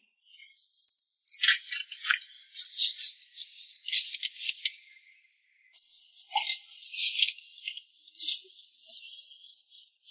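Dry, shaker-like rattling in irregular bursts, heard only in the high range, with no speech.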